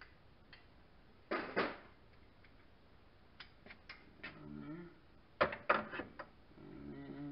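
Sharp metal clinks and clatters of hand tools and small metal parts being picked up and set down during timing-belt tensioner work, loudest in two clusters, about a second in and again past the five-second mark. Two short low hummed or murmured vocal sounds come between them.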